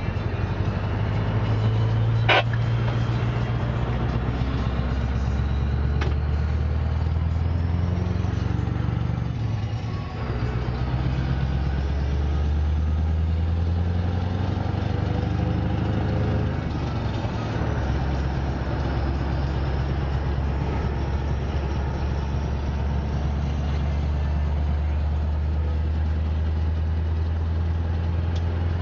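Scania R500's V8 diesel engine running steadily, heard from inside the truck's cab. The engine note dips briefly about ten seconds in and shifts again a few seconds later. Two sharp clicks come early on.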